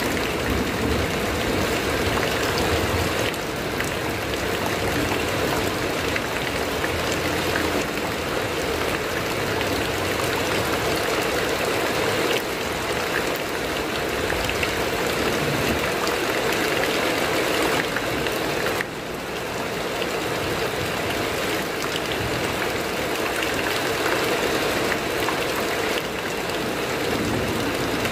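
Heavy rain drumming steadily on a corrugated metal roof, a dense even patter with a few slight dips in level.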